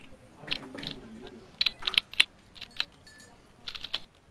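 Typing on a computer keyboard: quick, irregular runs of keystrokes.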